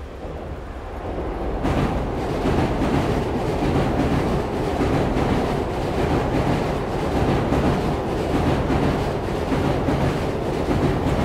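Playback of a field-recording ambience mixed from Schoeps, DPA and Sennheiser microphones: a steady, dense rumbling noise with a heavy low end. It swells up over the first couple of seconds, and its high end fills in at about two seconds in.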